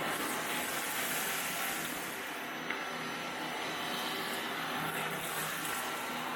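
Bissell Zing 2 bagless canister vacuum running steadily, its motor making a constant rushing hum, with one small click about halfway through.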